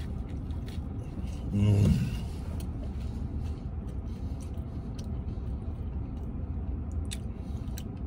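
A man chewing a mouthful of toasted grilled cheese sandwich, with a brief hummed "mm" about two seconds in. A steady low rumble fills the car cabin underneath.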